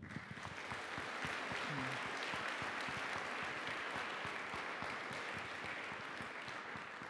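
Audience applauding at the end of a talk: steady clapping that starts at once and fades out near the end.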